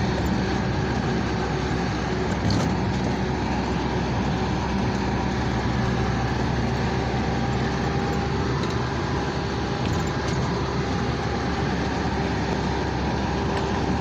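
Steady engine and road noise of a car driving along, heard from inside the cabin.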